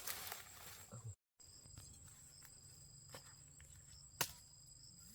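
Insects chirping in a steady, high-pitched trill. A few sharp knocks about three and four seconds in, the loudest just after four seconds.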